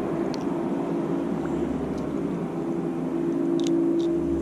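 A motorboat's outboard motor running with a steady drone, with a few faint clicks.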